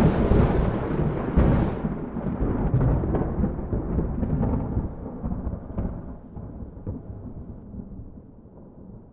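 A thunderclap: a sharp crack with a second crack about a second and a half in, then a long rolling rumble that slowly fades away.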